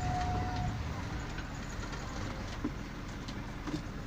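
Motor vehicle driving along a road: a steady low engine and road rumble. A short, steady high tone sounds in the first second.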